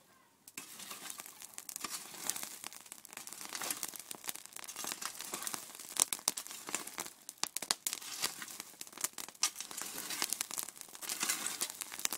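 Dense, irregular crackling and scraping of hot embers and ash in a fire pit being shovelled aside with a spade, starting about half a second in.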